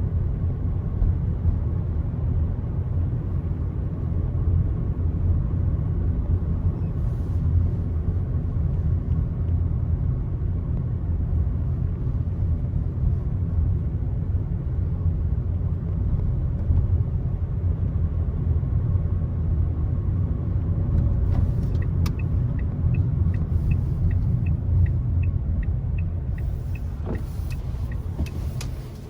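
Car driving: a steady low rumble of road and engine noise. About three-quarters of the way through, a run of quick, regular high ticks, about two a second, plays for several seconds, and near the end the rumble eases as the car slows.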